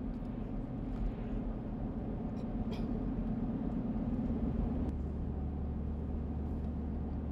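Steady low rumble of a car driving, heard from inside the car, with a deeper engine drone joining about four seconds in.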